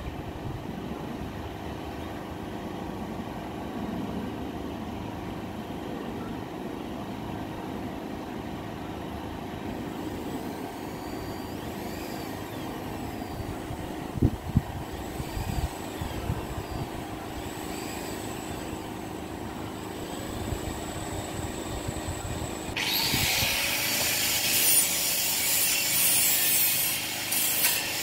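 A steady low rumble with one sharp knock about halfway. Then, about 23 seconds in, a power grinder bites into the steel tube of the fence-panel frame with a loud, harsh grinding hiss, taking off weld spatter and rust.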